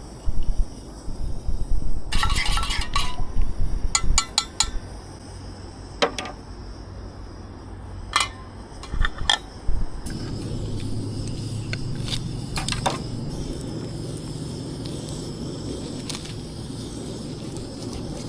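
Camp cookware and utensils clinking and clattering in several short clusters of knocks. About ten seconds in a steady low rushing hiss starts and keeps going.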